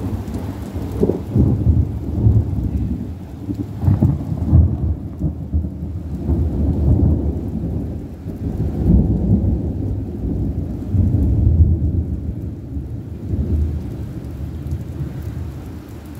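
Thunder rolling and rumbling for a long stretch, swelling and dying back several times, with rain falling.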